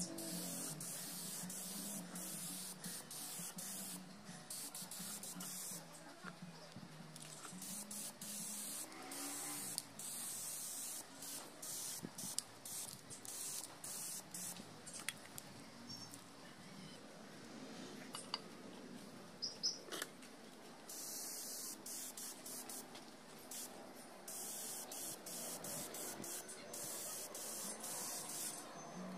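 Gravity-feed compressed-air spray gun spraying in repeated bursts of hiss, starting and stopping as the trigger is pulled and let go, with a few small clicks in the pauses.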